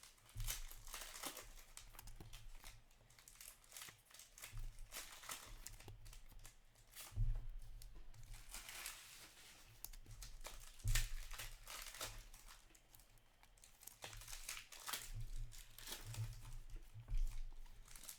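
Foil hockey-card pack wrappers crinkling and tearing as packs are opened, with cards being handled, in irregular rustles. There are two louder knocks, about seven and about eleven seconds in.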